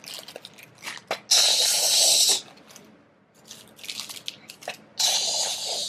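Small plastic Lego pieces pouring out of a crinkling plastic bag in two loud rushes, the first just over a second in and the second near the end, with light clicks and crinkles between.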